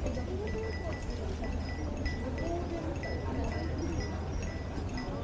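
A small bell jingling with each step as the walker goes, ringing two or three times a second, over faint voices of people in the street.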